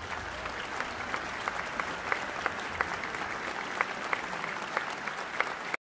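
Concert audience applauding steadily, with single sharp claps standing out from the general clapping.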